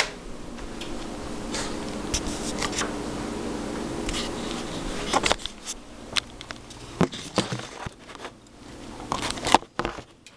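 Rustling, scrapes and scattered sharp clicks from a handheld camera being moved and handled, over a steady low hum that stops about five seconds in.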